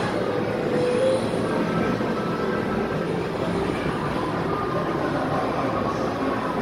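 Steady din of arcade game machines, a dense wash of noise with faint electronic tones sounding over it.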